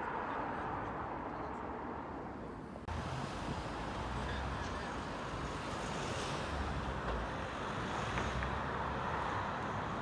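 Steady outdoor road traffic noise, a continuous hiss and hum with no single event standing out. It becomes fuller, with low rumbling, about three seconds in.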